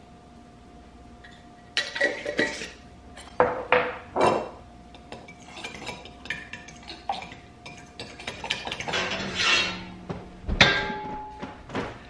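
A metal spoon stirring sauce in a glass bowl, clinking and scraping against the glass in irregular strokes. About ten and a half seconds in comes a louder knock and clatter.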